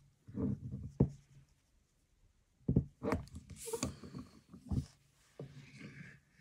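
A hand-operated button badge maker being worked: a few sharp knocks and clunks, with quieter handling noise between them.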